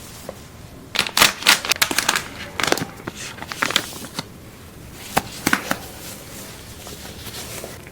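Close-up handling noise: irregular clusters of crisp clicks and crackles, busiest in the first half, with a few more about five seconds in.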